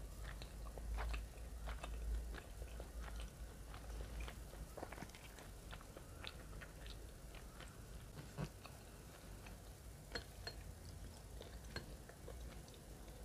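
A person chewing food close to the microphone: wet mouth clicks and smacks, thick in the first half and sparser after that.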